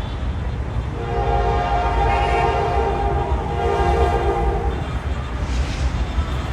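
A train horn sounds one long, steady blast of several tones together, starting about a second in and stopping after about four seconds, over the low rumble of a train.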